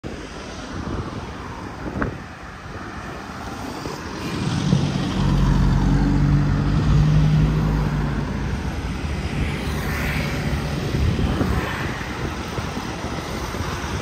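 An engine drone that swells about four seconds in, holds for a few seconds and then fades, over a steady low rumble. There is a single sharp click about two seconds in.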